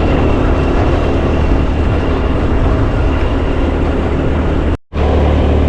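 Riding a motor scooter: steady engine and road noise under a heavy low rumble of wind on the microphone. It cuts out briefly about five seconds in.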